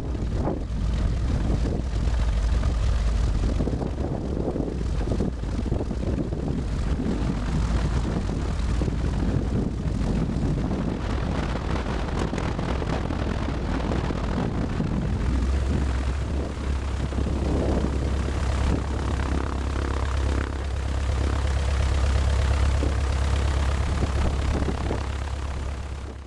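Zenith CH200's piston engine and propeller running steadily at taxi power, a loud low drone. Just past halfway the engine note rises slightly.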